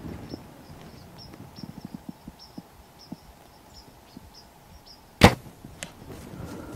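A single bow shot: one loud, sharp crack about five seconds in as the arrow is loosed at a whitetail buck and strikes it, with a fainter click just after. Faint insect chirps repeat evenly underneath.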